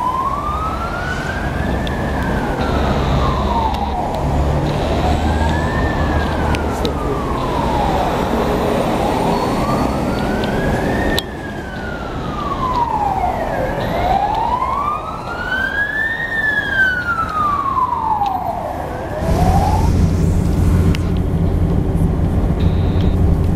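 Hong Kong Fire Services ambulance siren on a slow wail, rising and falling about every four seconds. Near the end the wail stops and the steady low running of a bus engine takes over.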